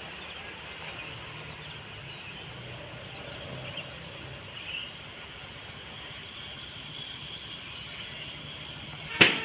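Faint outdoor ambience with a steady high insect drone, likely crickets, and a few short chirps. A single sharp, loud click comes near the end.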